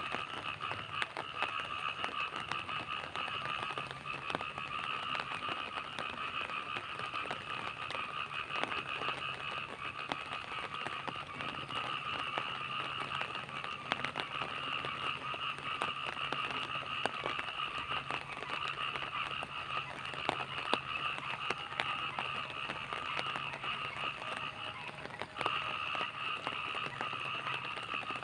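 Night rain falling, with many small drop ticks, over a steady chorus of frogs calling. The chorus drops out briefly near the end, then resumes.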